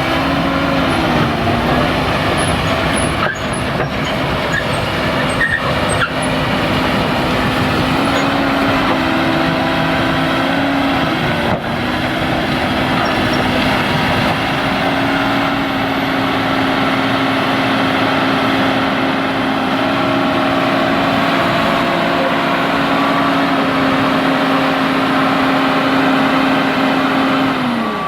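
Komatsu hydraulic excavator's diesel engine running steadily under load, its pitch dipping briefly and recovering a few times, with a few sharp clicks in the first half.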